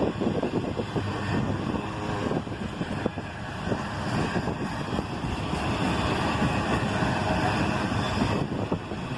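Pair of GE ES40DC diesel-electric locomotives hauling an autorack freight train as it gets moving, a steady heavy rumble of engines and rolling train.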